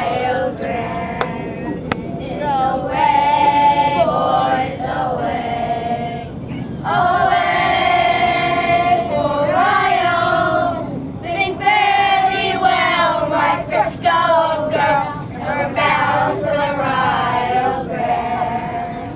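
A group of children singing together in unison, in phrases a few seconds long with short breaks between them.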